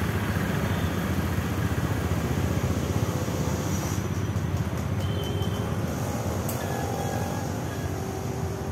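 Steady low rumbling outdoor background noise, with a few faint short high tones past the middle.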